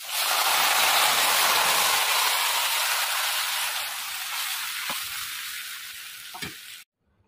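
Tamarind water poured into hot tempering oil in a kadai, sizzling loudly. The sizzle starts all at once, slowly dies down as the water settles into the oil, then cuts off suddenly near the end, with a couple of light ladle taps.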